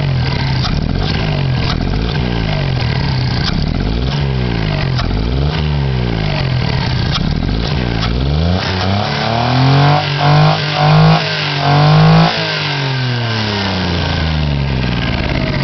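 Geo Metro's three-cylinder engine revved with the hood open: repeated quick throttle blips, the note rising and falling about once a second. Just past halfway comes a louder spell of higher revs with several sharp peaks, then it drops back toward idle.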